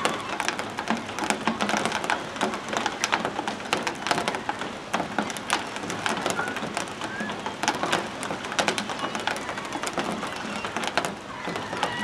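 A flock of gulls milling in shallow water: dense splashing and pattering from many feet and wings, with a few short calls here and there.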